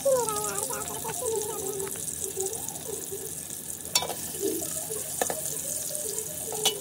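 A metal spoon clinking against an aluminium cooking pot as boiled eggs in spiced oil are stirred, three sharp knocks about four, five and almost seven seconds in, over a steady hiss.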